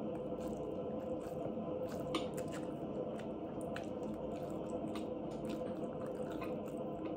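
Chewing and wet mouth sounds of a person eating rice and spicy ribs, with many small sharp clicks scattered through, over a steady low hum.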